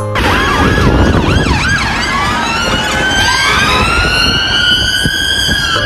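Emergency vehicle sirens, several overlapping, over the low rumble of traffic: quick rising and falling yelps for the first two seconds, then long slow wails that rise and hold high.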